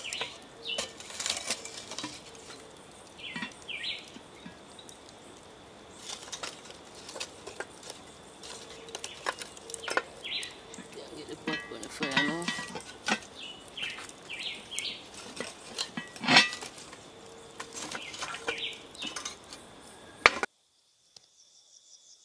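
Metal cooking pot and its lid clanking and scraping in irregular knocks as the pot is handled on a charcoal coal stove, with a steady high insect trill behind. It stops abruptly near the end.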